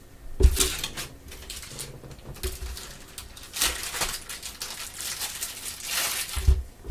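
Trading cards being handled with gloved hands: several short papery swishes as cards slide against one another, and a soft knock near the end as a card is set down on the table.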